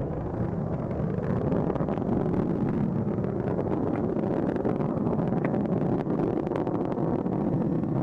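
Rocket engines of Space Shuttle Atlantis firing during ascent: a steady, rumbling rush of noise without pauses.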